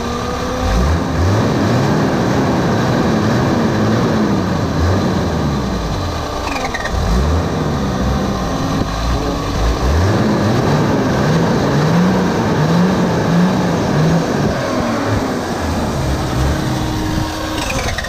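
Toyota 80 series LandCruiser engine being revved in repeated rising and falling blips, with the starter motor stuck on and running constantly alongside it.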